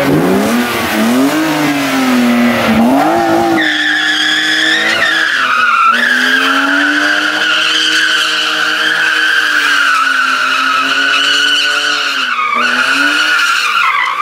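BMW E36 M3's straight-six revving hard during a donut, its revs swinging up and down for the first few seconds. From about four seconds in, the rear tyres squeal in a steady high-pitched screech over held revs, with a brief dip in the revs near the end.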